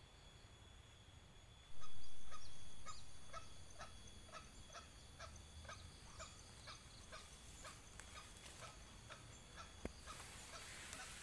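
Junglefowl clucking call: an even series of short notes at about two or three a second. A sudden loud sound about two seconds in fades away over a second or so.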